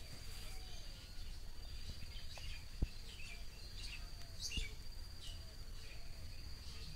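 Birds chirping in short repeated calls, mostly in the middle of the stretch, over a steady high-pitched whine; a single sharp click about three seconds in.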